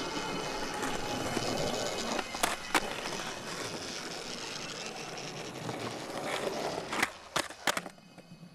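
Skateboard wheels rolling on pavement, with sharp clacks of the board striking the ground: two close together about two and a half seconds in, and three more near the end as the rolling dies away.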